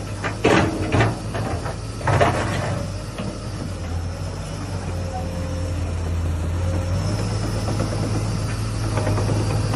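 Komatsu PC240 excavator's diesel engine running steadily while the hydraulics swing the boom and bucket, growing a little louder in the second half. A few sharp clanks come in the first two seconds or so.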